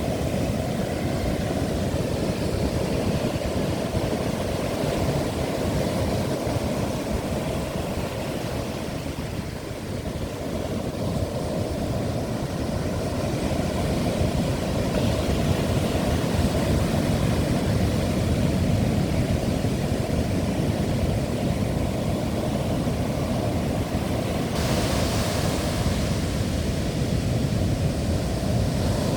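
Strong wind buffeting the microphone over the steady rush of heavy Atlantic surf, a dense low rumble throughout. Near the end a brighter hiss comes in suddenly and stays.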